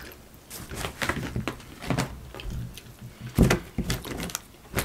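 Scattered small clicks and knocks of fingers pulling fried chicken legs apart and handling things on the table, with one louder thump about three and a half seconds in.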